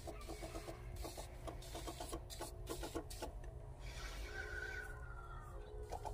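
Backpack sprayer's pump running while spraying fungicide, with a fast rhythmic ticking over a hum.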